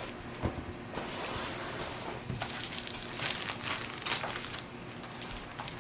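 Packaging being handled as a keyboard is unboxed: rustling and crinkling, with a few light clicks and knocks.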